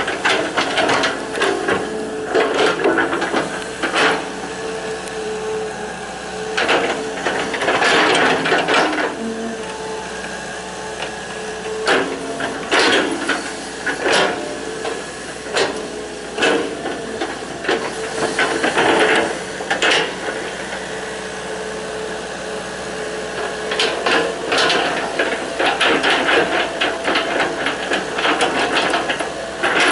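Hitachi EX120 excavator at work: the diesel engine and hydraulics run with a steady whine, broken by irregular clanks, scrapes and hydraulic hisses, heaviest in clusters about 8 s in and again from about 24 s.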